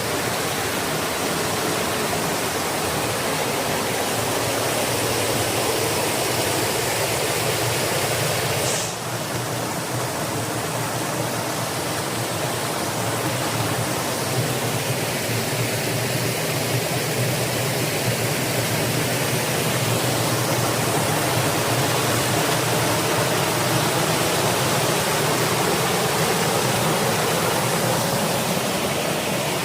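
Waterfall rushing steadily, a loud, even roar of water, with a brief dip about nine seconds in.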